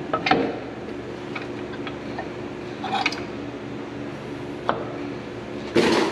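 Clinks and knocks of steel as a heavy-truck drum brake shoe and its hardware are handled and fitted onto the axle: a few light knocks, then a louder clatter near the end, over a steady hum.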